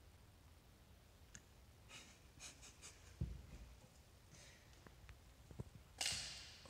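Quiet indoor room tone with a few faint clicks, a short low thump about three seconds in, and a brief rustle near the end.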